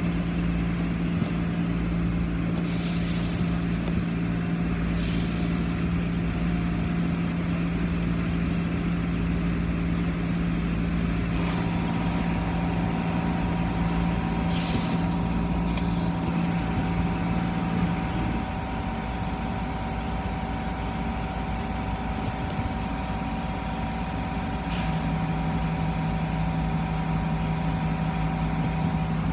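Automatic tunnel car wash machinery running, heard from inside a car: a steady motor hum with two higher steady whining tones joining about a third of the way in, and short hisses every few seconds. The low hum drops out a little past the middle and comes back near the end.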